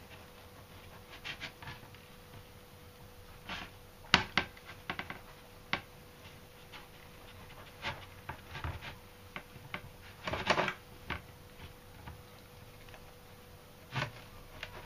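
A kitchen knife sawing through sesame burger buns on a plate: scattered short rasps and light knocks, the loudest cluster about ten seconds in.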